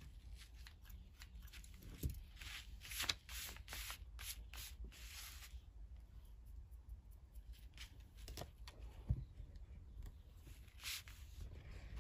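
Faint handling sounds of jute twine and paper: rustling and rubbing under the fingers, with a few light knocks about two, three and nine seconds in.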